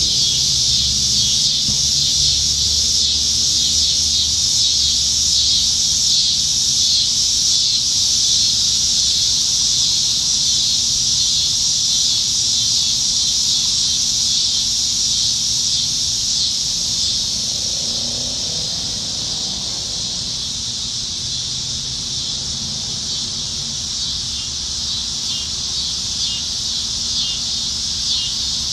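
Chorus of cicadas singing in the trees: a steady, high-pitched buzz with a fine rapid pulsing, easing a little in loudness past the middle.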